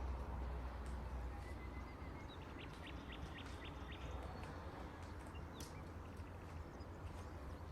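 Faint low rumble with a quick run of small clicks about two and a half seconds in and a few faint short chirps.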